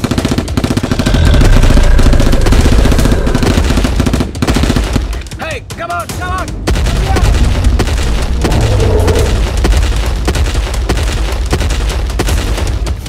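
Action-film sound effects: rapid automatic gunfire with heavy low booms, loudest about one to four seconds in, and short cries about halfway through.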